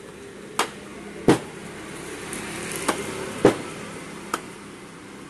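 Green tender coconut being chopped open with a curved machete-like blade, held in the hand: five sharp chops spaced about a second apart, the second and fourth the loudest.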